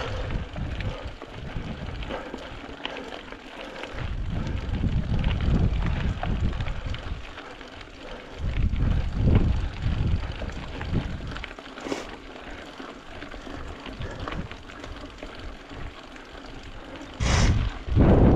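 Mountain bike ridden over rough trail, its frame and tyres rattling steadily. Wind buffets the camera microphone in gusts, loudest near the end.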